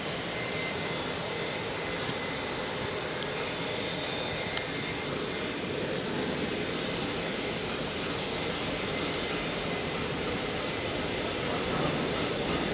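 Steady rushing roar of air-handling and fume-extraction ventilation filling a large welding shop, with one brief click about four and a half seconds in.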